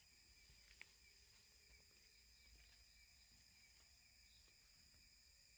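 Near silence: a faint, steady chorus of insects, with one small click just under a second in.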